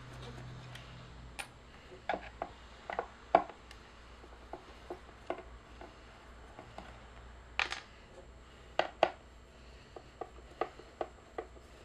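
Bose 201 speaker cabinet being opened up by hand: irregular clicks and light knocks of tools and parts being handled, with a few louder knocks.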